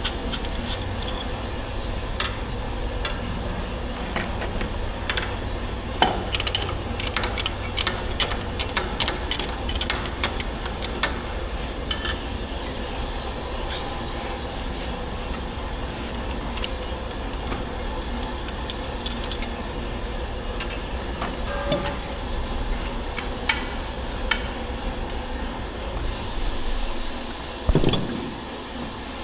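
Engine-repair workshop sounds: a steady low hum under a run of sharp metallic clinks and knocks from work on parts. The knocks come thickest from about six to twelve seconds in, with a few more later and a louder thump near the end.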